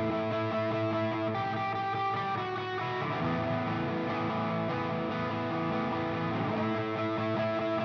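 Electric guitar with P90 pickups playing chords that are held and change every second or two. It runs through an amp and cab simulator, with compression and reverb.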